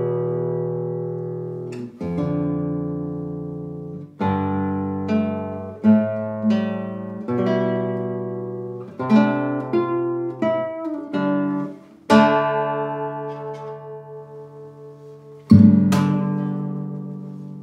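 Solo classical guitar, a 1985 José Ramírez Concert 1A, played fingerstyle: single notes and chords plucked and left to ring and die away. A loud chord is struck near the end.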